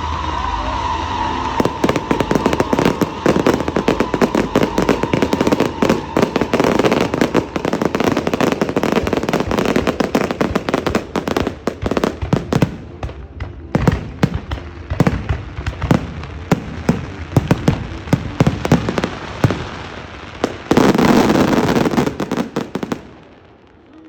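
Fireworks going off: dense, rapid crackling and popping bangs, with a steady whistle over the first several seconds. Near the end a last loud, dense barrage stops abruptly.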